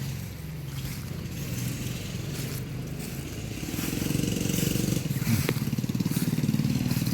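A motor vehicle's engine running close by, a low pulsing rumble that grows louder about four seconds in. A single short click comes a little after the middle.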